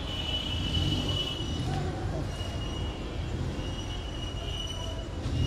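Street traffic noise: a steady low rumble of passing vehicles with a high squeal that comes and goes several times.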